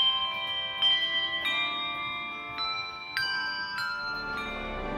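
Tuned bells playing a slow melody, one struck note at a time, each note ringing on over the next. Lower sustained tones come in near the end.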